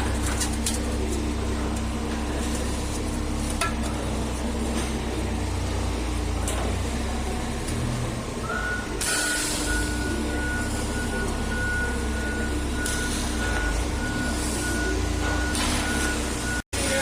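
CNC rolling machine running in a factory with a steady low hum. About halfway through, a high steady beep starts and keeps pulsing, and the machine noise gets hissier. The sound cuts out for a moment near the end.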